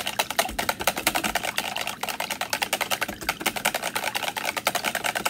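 Wire whisk clicking and rattling rapidly against the sides of a plastic pitcher as raw cold-process soap batter (oils and lye solution) is whisked by hand toward emulsification.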